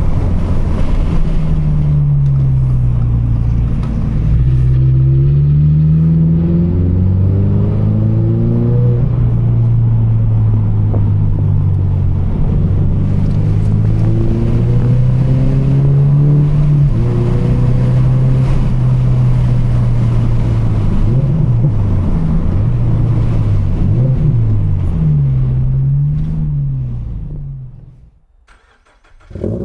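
Toyota GR86's 2.4-litre flat-four engine and exhaust under way. The engine note climbs and drops as it pulls through the gears, holds steady for a while, then wavers through quick rev changes before fading away near the end.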